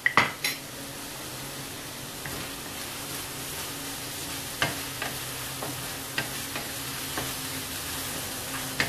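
Squid and other seafood sizzling in a frying pan with black pepper spice paste and fish stock, under a steady low hum. A spatula stirs and knocks against the pan: one sharp knock at the start, then several lighter clinks through the second half.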